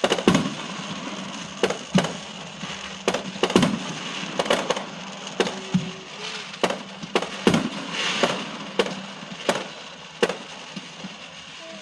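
New Year's fireworks going off in an irregular series of sharp bangs, over a haze of crackling.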